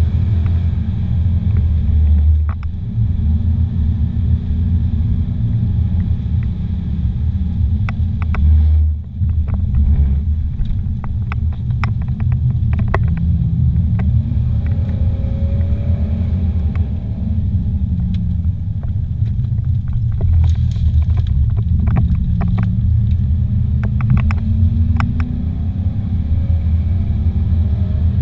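Car engine and tyre rumble heard from inside the cabin, steady and low, with the engine note rising and falling through the bends. There is a brief drop in level about nine seconds in, and light ticks and rattles are scattered through.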